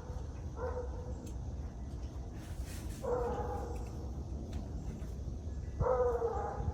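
Coonhound baying at the foot of a tree out in the woods, a treeing bay that marks her trying to tree an animal. Three drawn-out bays sound at a distance: a short one early, then longer ones about three seconds in and near the end.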